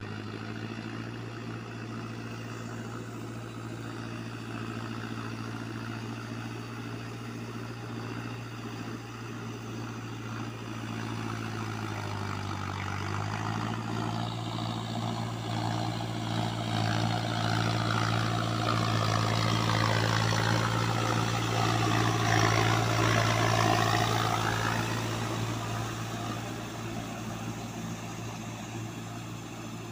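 Mahindra Arjun Novo tractor's diesel engine running steadily under load while pulling a rotavator through a wet paddy field. Its drone dips briefly about twelve seconds in, then grows louder and fades again over the second half.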